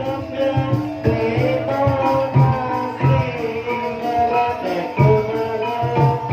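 Javanese barongan accompaniment music: hand-drum strokes under a bending, wavering melody, playing steadily.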